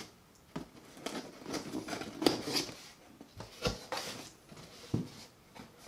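Cardboard box being handled and its flaps opened: irregular scrapes, rustles and taps of cardboard, with the sharpest knock a little over two seconds in.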